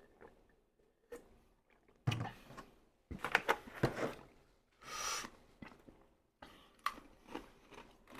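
Close-miked eating sounds: chewing and mouth noises with scattered clicks and food-handling sounds, and a short breathy hiss about five seconds in.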